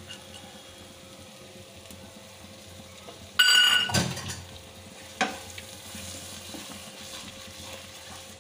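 Spice paste sizzling softly in a kadai as yogurt is stirred into it with a spatula. About three and a half seconds in there is a loud, brief ringing scrape with a thud, and a sharp knock of the spatula about a second and a half later.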